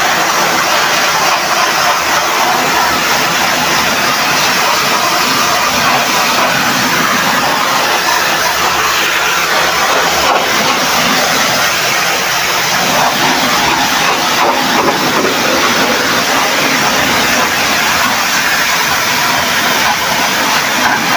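Pressure washer jet spraying steadily through the core of a truck radiator, a continuous loud hiss of water blasting out the rust.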